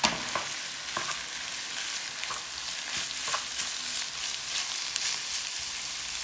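Raw ground meat sizzling in hot oil in a non-stick pan over softened onions and garlic, as a plastic spatula stirs it, knocking and scraping against the pan. A sharp knock comes right at the start.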